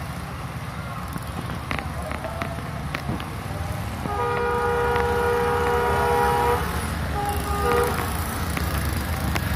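Diesel locomotive horn sounding a long multi-tone blast of about two and a half seconds a little under halfway in, then a shorter blast, over a steady low rumble of traffic and engine.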